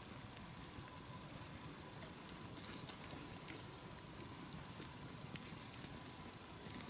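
Small campfire crackling faintly, scattered sharp pops over a low steady hiss.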